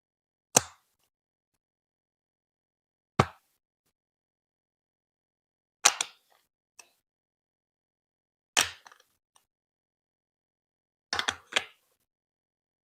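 Hard plastic Lego Duplo bricks clicking as they are set down and pressed into place: single sharp clicks every two to three seconds, a couple with a faint rattle after, then a quick run of three or four clicks near the end.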